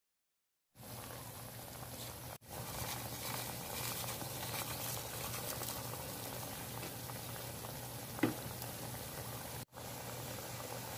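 Chicken liver adobo bubbling at a steady simmer in an open aluminium pot over a wood fire, starting after a moment of silence. A single sharp knock about eight seconds in.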